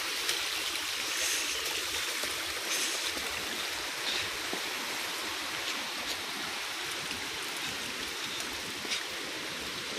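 Steady rush of flowing water from a fast-running stream, with water running over and beside a stone path.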